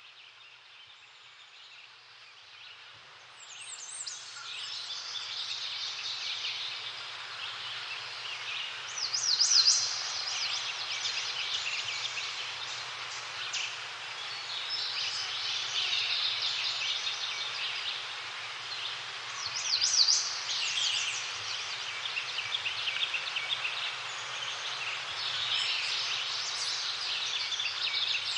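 Songbirds singing in a forest: a dense chorus of chirps and rapid trills that fades in over the first few seconds, with the loudest fast trills about a third of the way in and again past the middle.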